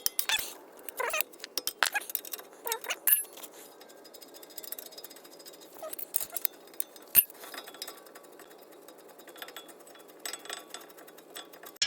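Metal hand tools clinking and clicking as a wrench and triple-square bit work the brake caliper bracket bolts loose, with a few short falling squeaks in the first three seconds. There is one sharp metallic knock about seven seconds in, the loudest sound.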